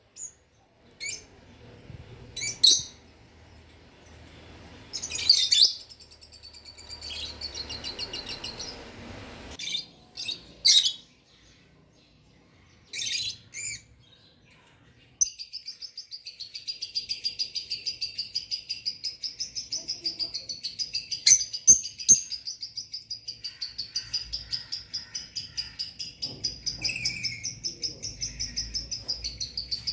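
Pet lovebirds chirping: sharp, separate high calls for the first half, then from about halfway a continuous rapid twittering chatter of several pulses a second.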